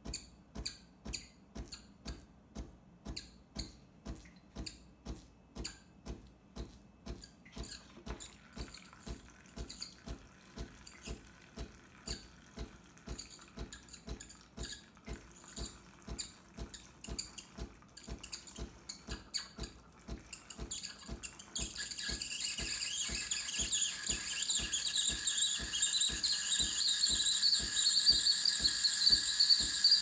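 Breville Cafe Roma espresso machine steaming: its pump pulses evenly about twice a second, and from about two-thirds of the way through a steady hiss of steam from the steam wand joins in and grows louder. The repaired heating element is now making steam.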